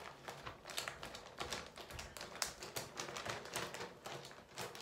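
Clear plastic zipper-seal bag being pressed shut along its zipper: a run of small irregular clicks with some plastic crinkling.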